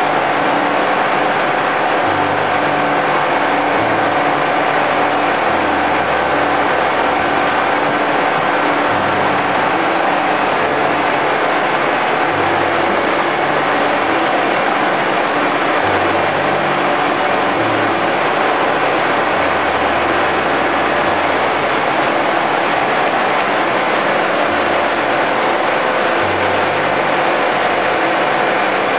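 Engine and suction pump of a tin-mining suction boat running steadily at high volume, a dense, unbroken mechanical drone with a few fixed tones in it.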